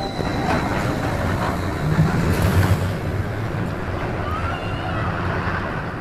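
Empty Incredicoaster roller coaster train on a test run, rolling out along its steel track with a steady rumble that swells about two seconds in.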